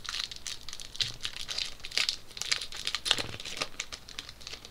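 Crinkling of a plastic trading-card pack wrapper being handled and torn open, an irregular run of crackles that is loudest around two and three seconds in.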